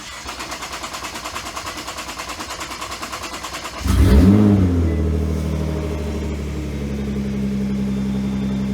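Nissan GT-R R35's twin-turbo V6 cranking on the starter for nearly four seconds, a fast even chug, then catching with a quick rev that rises and falls before settling into a steady idle. This is the first start after a fuel pump swap.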